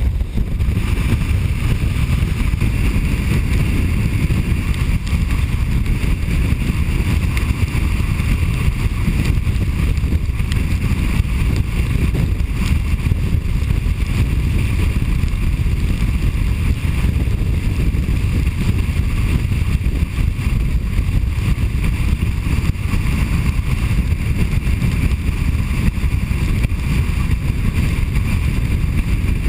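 Steady road and wind noise of a car driving at highway speed, mostly deep and unbroken, heard from inside the vehicle.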